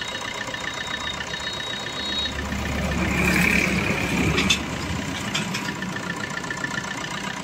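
Maruti Suzuki Swift engine idling under the open bonnet. A few seconds in, a louder hum and rush builds for about two seconds and then drops back, with a few sharp clicks near the middle, as the AC is switched on and the compressor cuts in while being charged with R134a refrigerant.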